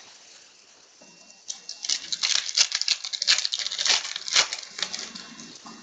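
Foil wrapper of a trading card pack being torn open and crinkled: a dense run of crackles that starts about a second and a half in and eases off near the end.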